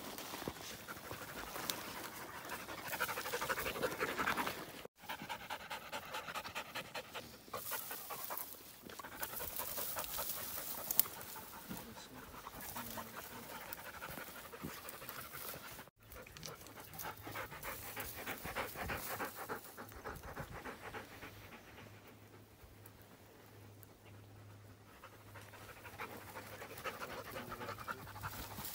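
Hunting dogs panting hard up close, quick rhythmic breaths, broken off abruptly twice where the takes change.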